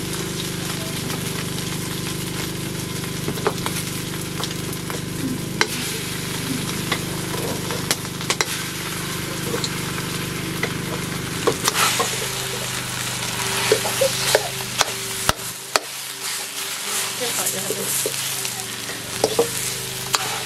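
Food frying and sizzling in a pan while it is stirred, with sharp knocks and scrapes of a utensil against the pan that come more often in the second half.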